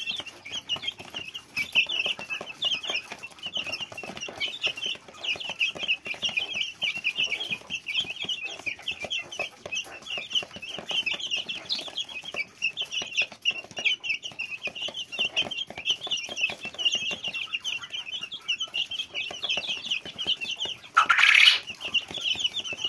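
A flock of young chicks peeping constantly as they crowd a feed tray: a dense stream of short, high chirps over soft taps of beaks pecking at the mash. One louder, harsher sound stands out near the end.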